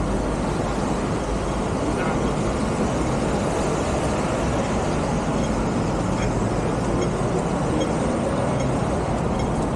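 Steady road traffic noise along a busy city street, an even rumble with no single event standing out.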